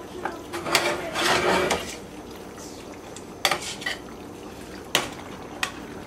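Long metal spoon stirring penne in Alfredo sauce in a stainless steel stockpot. There is a longer stretch of stirring about a second in, then several separate sharp clinks of metal on the pot.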